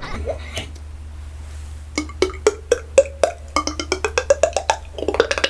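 Mouth-made percussive sound effects, tongue clicks and pops each carrying a short pitched tone, like a wood block. After a quiet start there are single pops about two seconds in, then a fast run of clicks that rises in pitch, and the clicking thickens near the end.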